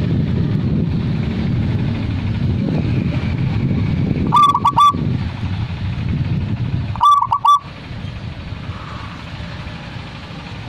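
Zebra dove (perkutut) cooing: two short phrases of about four quick notes each, roughly three seconds apart, over a low background rumble.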